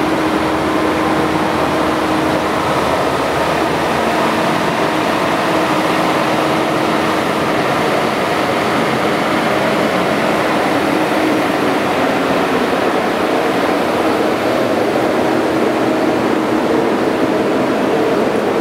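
Steam-powered sawmill running: a loud, steady mechanical noise with a faint low hum and no separate knocks or breaks.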